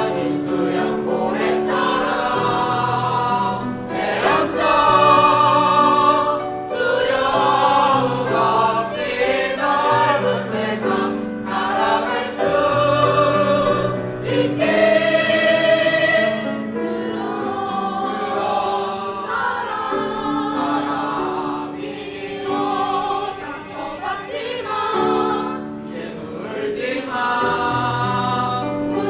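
A choir singing a song, many voices together over steady sustained low notes.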